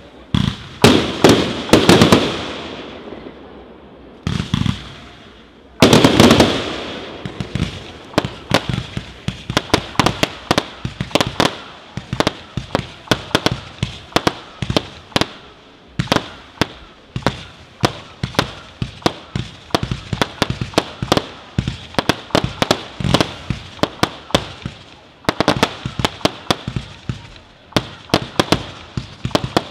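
Fireworks display: a few heavy shell bursts with long rolling echoes in the first six seconds, then a fast, unbroken volley of sharp cracks, several a second.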